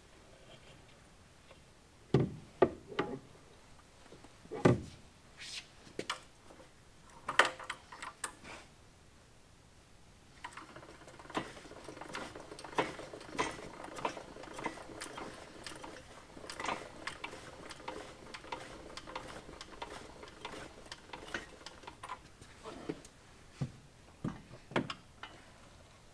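Scattered knocks and clanks of metal tools and parts being handled. A longer stretch of fast, irregular clicking and rattling begins about ten seconds in, and a few more knocks come near the end.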